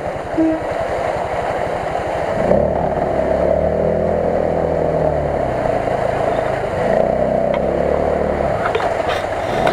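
ATV engine running, then revved in long, rising and falling pulls from about two and a half seconds in as the bogged quad bike tries to drive out of deep mud.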